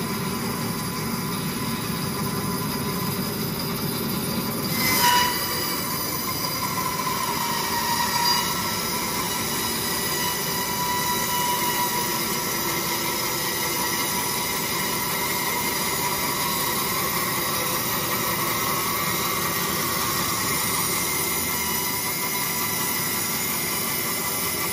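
Portable sawmill running and cutting timber: a steady machine sound with several high steady tones over it, briefly louder about five seconds in.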